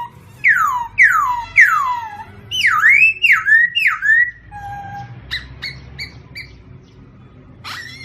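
A songbird singing loud whistled phrases: three falling slurs in quick succession, then a run of swooping notes, and after about five seconds a string of short, high chirps.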